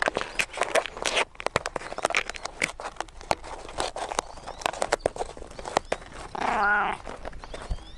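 A quick, irregular run of clicks and rustles, then, about six seconds in, an animal gives one short call with a wavering pitch.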